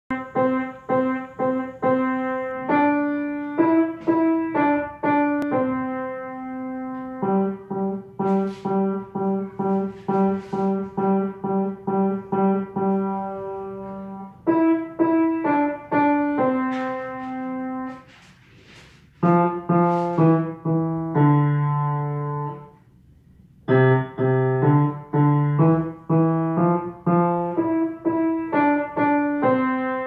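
Samick grand piano played by a child: a simple tune in separate struck notes, partly with lower accompanying notes, broken by two short pauses about two thirds of the way through.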